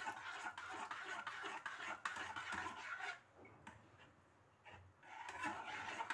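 A metal spoon stirring jelly liquid in a metal saucepan, with light clicks and scrapes against the pan. It stops for about two seconds midway, then starts again.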